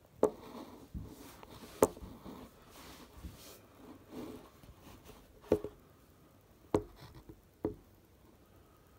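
Five sharp clicks and knocks at uneven intervals, with soft rustling between the first few: handling noise.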